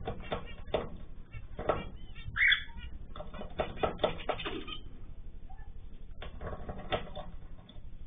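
Aviary cage birds (cockatiels and finches) calling: a busy patter of short chirps and clicks, with one louder call about two and a half seconds in.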